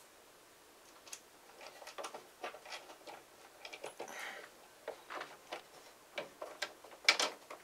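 Small metal clicks and taps of bolts, flat washers and lock nuts being handled and started on a model airplane's engine mount. They come irregularly, with a louder clack near the end.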